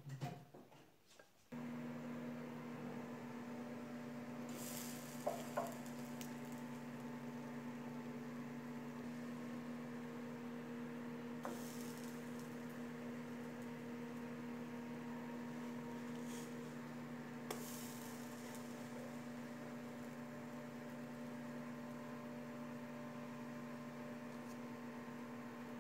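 Steady low electrical hum that starts about a second and a half in, with three brief hissy noises about six seconds apart.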